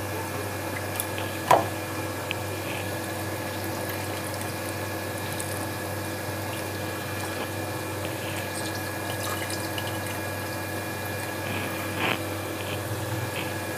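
Hands squeezing soaked fried urad dal fritters over a steel bowl of salted water: wet squelching and dripping against a steady hum. A brief louder sound comes about a second and a half in, and another near the end.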